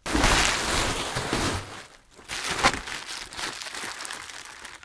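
Bubble wrap and plastic packing rustling and crinkling as hands unwrap a part in a cardboard box, loudest for the first two seconds, then fainter crinkles with one sharper crackle.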